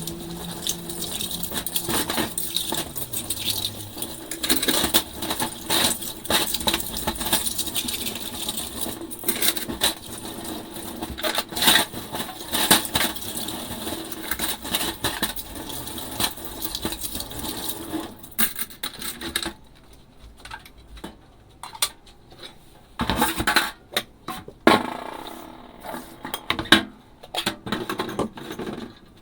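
Dishes being hand-washed in a sink: frequent clinks and knocks of dishware over a steady hiss like running water. About two-thirds of the way through the hiss stops, leaving scattered clinks and short clusters of knocks.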